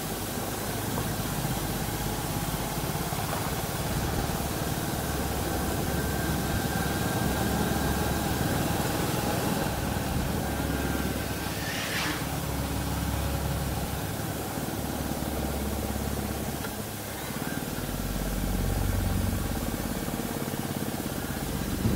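Royal Enfield Classic 350's single-cylinder engine running steadily on the move, swelling louder briefly about three quarters of the way through. A brief high-pitched sound cuts in once about halfway.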